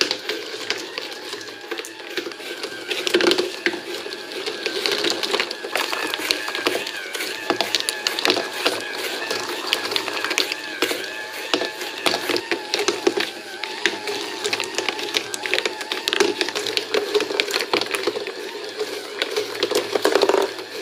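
Small DC gear motor whining steadily as it drives a cardboard marble escalator, with glass marbles clicking and rattling rapidly against the cardboard steps and track.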